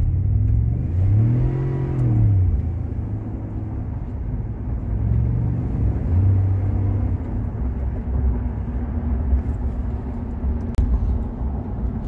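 Ford F-150 3.5-litre twin-turbo V6 EcoBoost accelerating through the gears, heard inside the cab. The engine note rises and drops back twice at the shifts. It is a deep V8-like sound, partly the fake engine noise the truck plays through its speakers.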